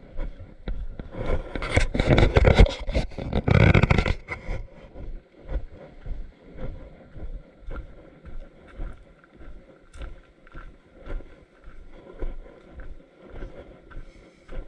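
A hiker's footsteps, steady at about two steps a second, after a loud rush of noise on the microphone from about one and a half to four seconds in.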